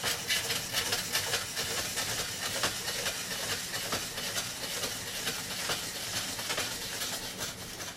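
Joyce Chen Saladacco hand-cranked spiral slicer shaving broccoli stems into spirals: a continuous rasping scrape of the blade through the stem, with many quick clicks from the turning crank.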